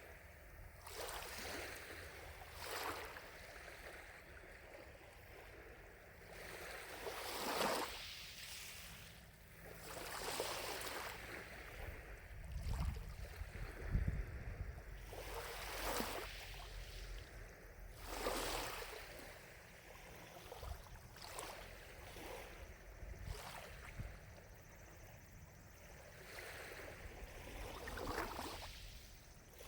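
Small lake waves lapping at the shore, a soft wash every few seconds, some louder than others. A brief low rumble about halfway through.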